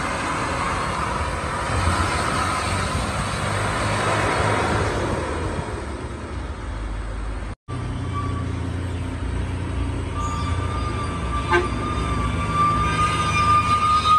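Diesel trucks passing on a road. A white light truck's engine runs past and fades over the first several seconds. After a break, a sugarcane-loaded Mitsubishi truck's diesel engine approaches and grows louder, with a steady high-pitched tone that starts about ten seconds in and rises slightly in pitch.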